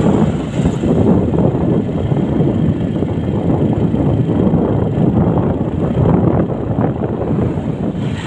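Wind buffeting the microphone of a camera moving along a road, a loud, steady rumble with vehicle noise underneath.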